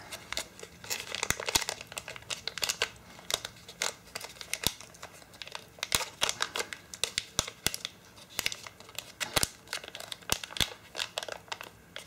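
Plastic and metallised anti-static bags crinkling in quick, irregular crackles as they are handled and pulled at to free a small circuit-board module.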